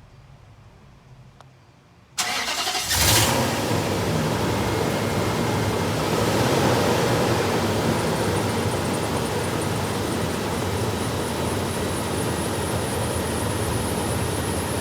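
2005 Nissan Titan's 5.6-litre V8 starting about two seconds in, catching almost at once with a brief surge, then running steadily at idle. The no-start was a nearly empty fuel tank, with the fuel gauge reading wrongly, and the engine now runs on freshly added gas.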